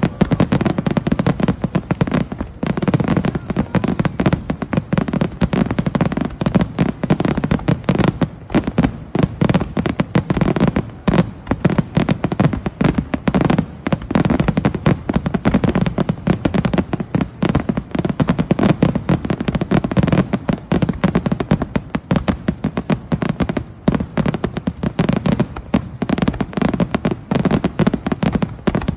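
Aerial fireworks in a dense, continuous barrage: shell bursts and booms follow one another so closely that they overlap, with crackling between them.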